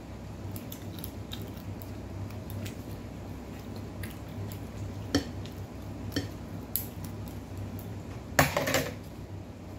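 Kitchen scissors snipping through dry, crisp Arabic flatbread (kubos): scattered short snips and crackles, with a louder crackling burst about a second before the end.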